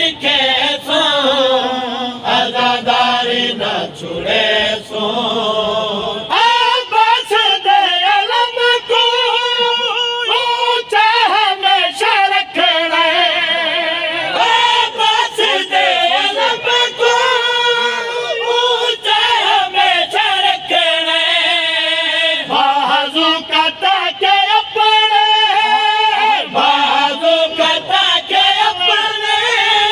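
A man singing a kalam (devotional poem) with no instruments, in long ornamented lines whose pitch wavers and bends, with other voices joining in.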